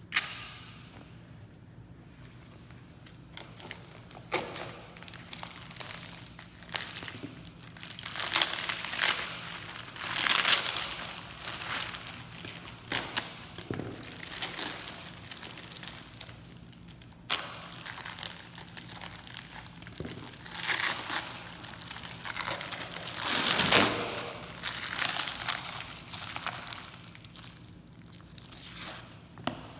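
Clear plastic bag being pulled and peeled off a large slab of raw beef, crinkling and rustling in irregular bursts. There is a sharp tap at the very start.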